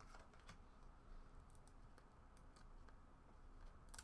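Faint, scattered light clicks of 1996-97 Skybox Premium basketball cards being handled and flipped through, against near-silent room tone.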